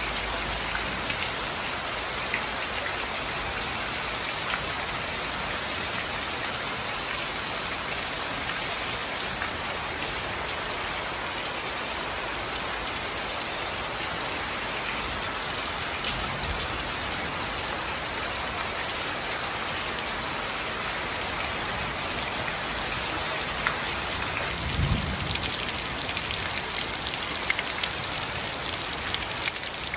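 Heavy rain falling steadily, with water pouring off a roof edge and drops splashing into puddles on a lawn. The splashes get more distinct near the end.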